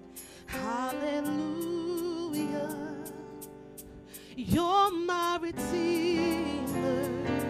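Gospel worship music: a woman's lead voice sings long, wavering notes, with a quick swoop down and back up about halfway through, over sustained keyboard chords and a steady light ticking beat.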